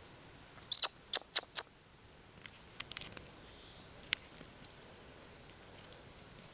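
Bracco Italiano puppies at play, one giving four short, high-pitched yelps in quick succession about a second in, followed by a few faint clicks and taps.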